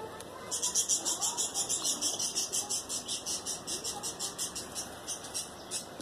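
A rapid, even run of high-pitched chirps, about seven a second, starting about half a second in and slowly growing fainter.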